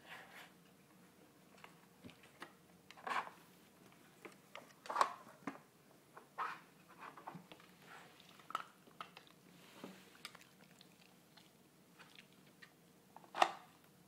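A dog nosing and pawing at a plastic Dog Brick treat puzzle: irregular clicks, knocks and scrapes of the sliding blocks and lift-out pieces, with a few louder knocks, the loudest near the end, and chewing as it eats the treats it uncovers.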